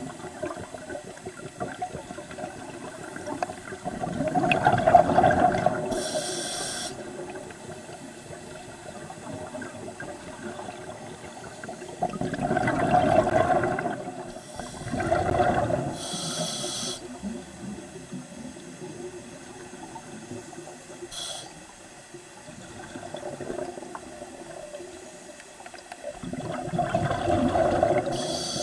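Scuba diver breathing through a regulator underwater: slow breaths, with exhaled bubbles gushing out in long bursts and a short high hiss of inhaled air after most of them, about four breaths in all.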